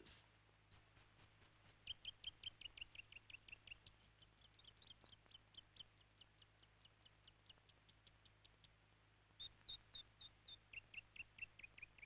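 New Zealand robin (pītoitoi) singing quietly: long runs of quick, clear, repeated whistled notes, about six a second, stepping down in pitch partway through. There is one brief pause before a second run.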